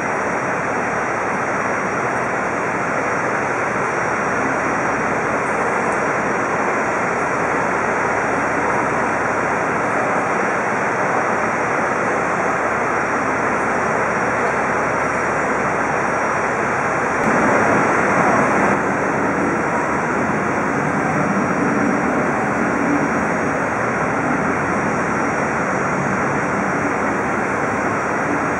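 A Boeing 737's twin turbofan engines run at low taxi thrust as the jet rolls slowly onto its stand. The sound is a steady jet rush with a thin, high whine, and it swells briefly a little past halfway.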